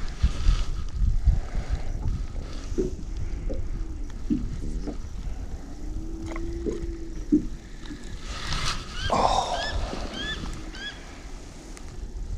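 Low rumble of wind on the microphone, with a few soft knocks and a quick run of short rising bird chirps about nine seconds in.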